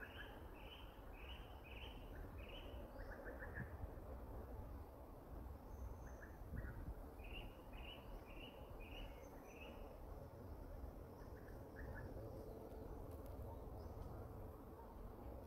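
A bird calling in two runs of about five quick, evenly spaced notes, one right at the start and another about seven seconds in, with softer short chirps in between, over faint outdoor background noise.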